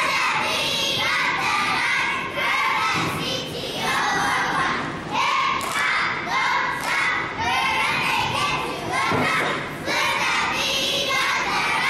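A group of young cheerleaders shouting a cheer in unison, phrase after phrase, with a few thuds from the mat.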